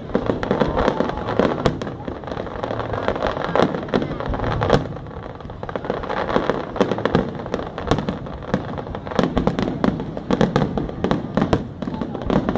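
Aerial fireworks display: shells bursting in quick succession, many sharp bangs and pops every second.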